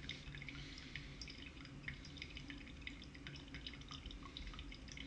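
Faint, irregular dripping: brewed coffee dripping from a pour-over cone into the mug below it.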